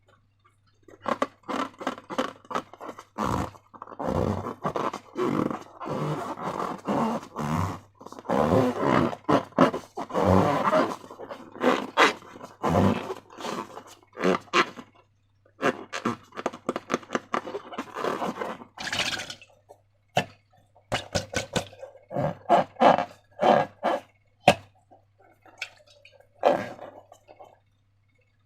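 Slime being worked by hand against balloon rubber: wet, sticky squelching and scraping in quick irregular bursts, busiest in the first two-thirds and sparser near the end.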